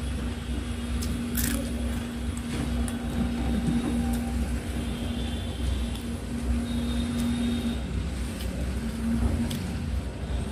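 Fingers working rice on a steel plate, giving scattered small clicks and scrapes. Under them runs a steady low rumble with a faint humming tone.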